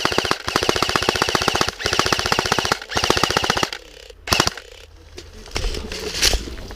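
Airsoft gun firing on full auto in several long bursts, about 17 shots a second with a high whine under them, stopping a little before four seconds in; then two single sharp shots.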